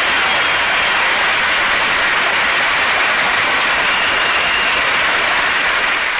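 Large convention-hall crowd cheering and applauding: a loud, steady roar.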